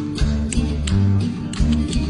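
Acoustic bass guitar playing a bass line of held low notes, changing about every half second, along with a recorded Colombian tropical band arrangement that has sharp percussion hits.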